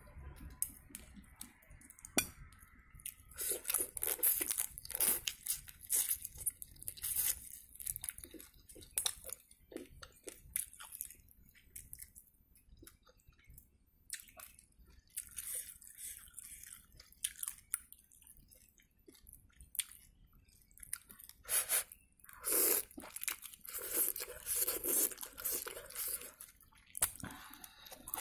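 Close-miked mouth sounds of eating spicy instant noodles and shrimp: irregular wet chewing and smacking, with noodles slurped in now and then, heaviest a little past the middle.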